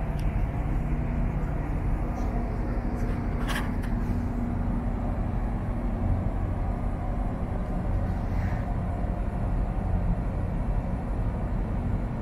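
Steady low hum and rumble of a large car ferry's machinery, heard on the open deck near the funnel. A brief click comes about three and a half seconds in.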